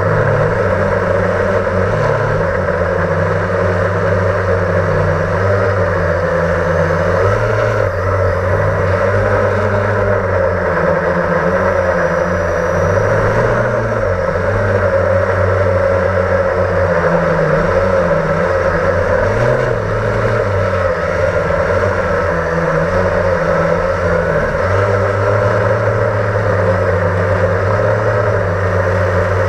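Blade 350 QX quadcopter's electric motors and propellers running in flight, heard from the camera mounted on the quad: a steady drone whose pitch wavers slightly as the throttle changes.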